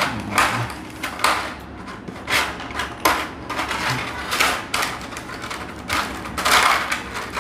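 Clear plastic blister tray crackling and clicking as fingers pick small accessory parts out of it, in an irregular run of sharp clicks.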